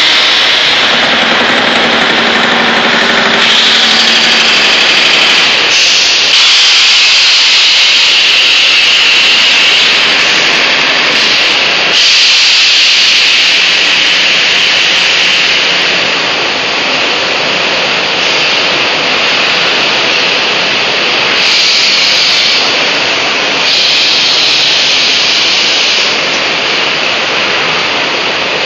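Loud, steady hissing din of a foundry molding line with pneumatic jolt squeeze molding machines running; the noise shifts up and down in level every few seconds.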